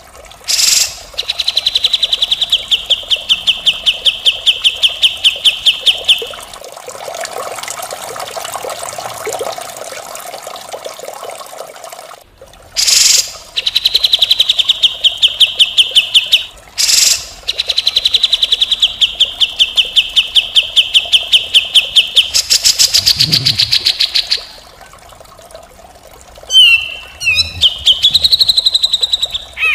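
Cucak jenggot (grey-cheeked bulbul) song, harsh and rasping: long fast rattling trills of evenly repeated notes at one pitch, broken by short loud calls. A rougher, quieter stretch comes in the middle, and a few sliding notes near the end.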